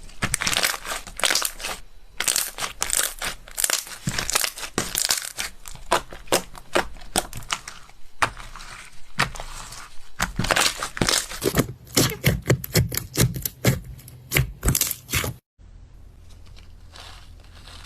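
Slime being squeezed and worked by hand, making dense, irregular crackling and popping clicks. The clicks stop abruptly about fifteen seconds in, leaving only faint handling sounds.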